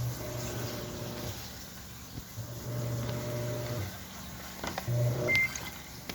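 Samsung 8 kg washing machine running a loaded wash: its drum motor hums in spells of about a second with pauses between, as the drum turns and stops. Near the end there are a few clicks and one short high beep.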